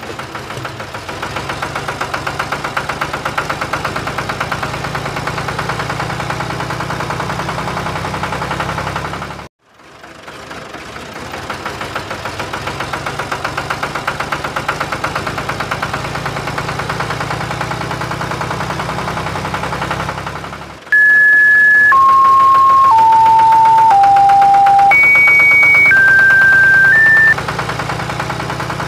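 Steady chugging engine running with a fast, even ticking rhythm, cut off abruptly for a moment about ten seconds in and then picking up again. Over it, from about two-thirds of the way through, comes a loud run of seven electronic beeps, each about a second long, first stepping down in pitch and then jumping back up.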